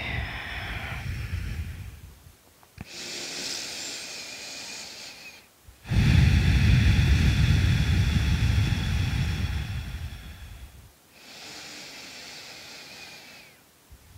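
A woman breathing slowly and deeply, two long breath cycles of a few seconds each. A soft, higher hiss of air alternates with a louder, lower rush, and the loudest breath comes about six to ten seconds in.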